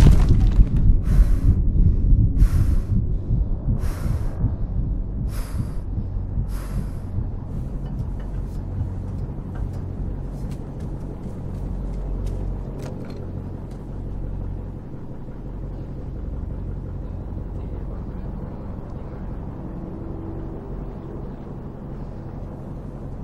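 Fishing boat's engine running steadily, a low rumble that eases off in loudness over the first several seconds. Early on, about five short hissing bursts come at even spacing, roughly one every second and a half.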